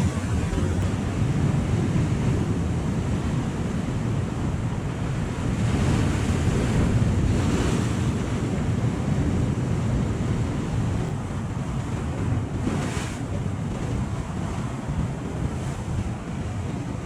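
Sea waves washing, with wind buffeting the microphone in a steady low rumble. Surges of hiss rise briefly about six to eight seconds in and again around thirteen seconds in.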